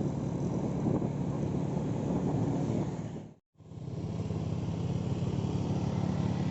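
A motor vehicle's engine running steadily, with road and wind noise, broken by a brief dropout about halfway through.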